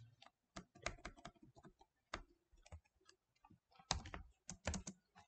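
Faint, irregular keystrokes on a computer keyboard, with a quicker run of key clicks about four seconds in.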